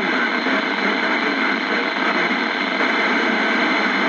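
Steady hiss from a CB radio's speaker in FM receive, a noisy channel with no clear voice on it, stopping abruptly at the end.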